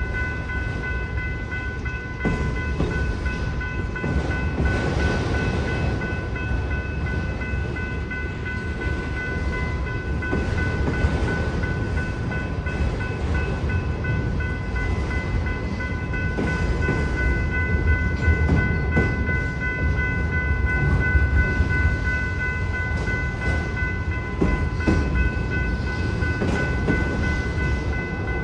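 Freight train's railcars rolling through a grade crossing with a continuous low rumble and wheel noise. The crossing bell rings steadily through it.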